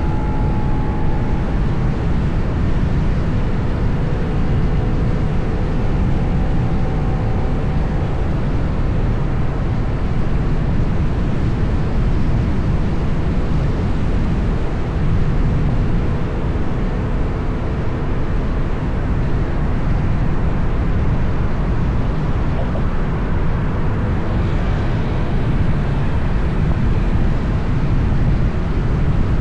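Steady road and wind noise of a vehicle travelling through city traffic, with a deep, even rumble and faint engine tones in the first few seconds.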